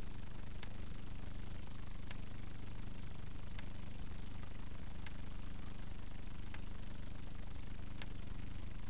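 Steady electrical hum and hiss from a CCTV camera's built-in microphone, with a faint tick about every second and a half. No sound from the roosting chickens.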